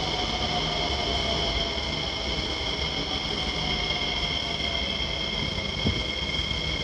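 SMRT C151B metro train pulling into the station behind the platform screen doors. It makes a steady running rumble with high whines, and one tone falls slowly as the train slows. A single knock comes about six seconds in.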